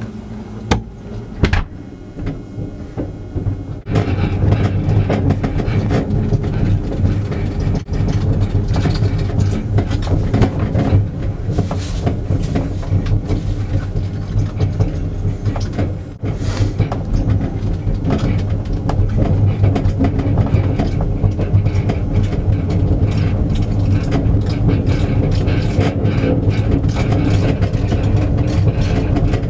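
A rear-car handcart carrying a camera obscura box rolling along an asphalt road: a steady rumble of the wheels with constant rattling and clicking from the cart and box. A few sharp knocks come first, and the rolling starts about four seconds in.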